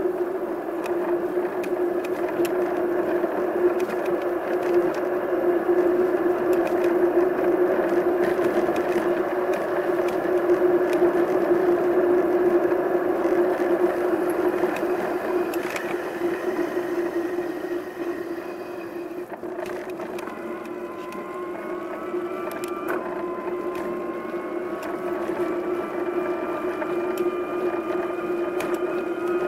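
A steady engine hum with wind and road rush, as heard while riding. In the last third a higher whine rises, drops once, then climbs again.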